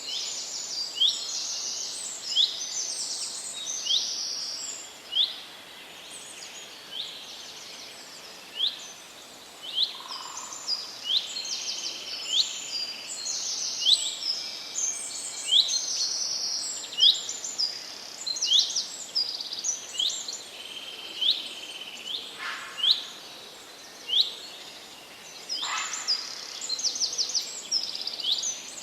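Several songbirds singing in a forest chorus: many short, high chirps and quick trills repeating throughout, over a faint steady background hiss.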